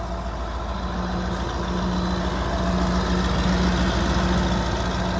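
Steady drone of a large vehicle's engine running, with a low hum and a steady tone that grows slightly louder.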